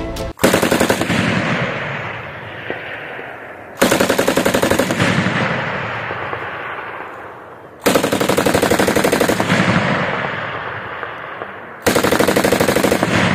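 7.62 mm MAG medium machine gun firing four bursts of rapid automatic fire, each about a second or a second and a half long and about four seconds apart. Each burst is followed by a long echo that dies away.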